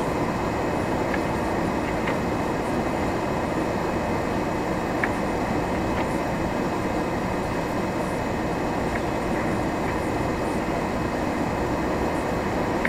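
Steady running noise of a vehicle driving on a snow-covered road at about 40 km/h, engine and tyres heard from inside the cabin, with a few faint ticks.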